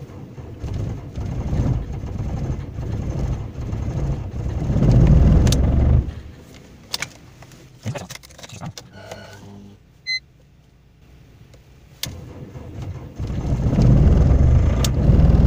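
BMW E46 diesel engine cranked by its starter in deep cold (about −18 °C) for about six seconds without firing, then cut off. After a lull with a few clicks and a short electronic beep about ten seconds in, the starter cranks it again from about 13 seconds in, the attempt on which the cold diesel catches.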